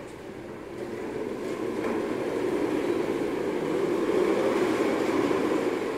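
Hoverboard rolling on a tiled floor: a low rumble of wheels that builds from about a second in and eases near the end.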